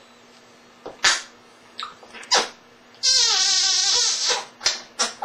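African grey parrot vocalising: a few short, sharp, breathy sounds, then a longer wavering call about three seconds in that rises in pitch, followed by more short sounds near the end.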